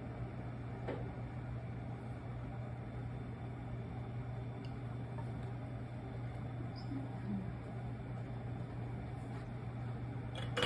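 A steady low mechanical hum, like a kitchen fan or appliance running, with a few faint light clicks and a sharper click near the end.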